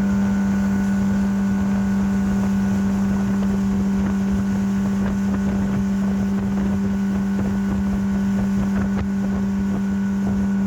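Speedboat engine running steadily at speed, a constant droning tone, with wind buffeting the microphone.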